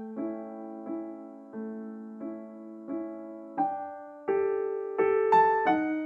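Background piano music: a slow, gentle line of single notes and chords, one struck about every two-thirds of a second, each ringing out and fading. In the second half the notes come a little faster and louder.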